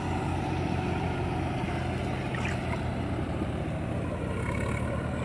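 Diesel tractor engines, a Swaraj towing a John Deere with a loaded paddy trailer through mud, running steadily under load: a low, even engine drone.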